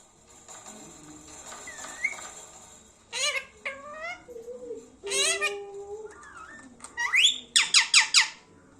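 Indian ringneck parrot calling: a few separate squawks with bending pitch, then a quick run of about five loud, shrill calls near the end.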